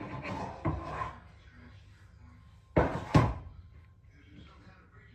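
Knocks and clatter, with two sharp knocks in quick succession about three seconds in.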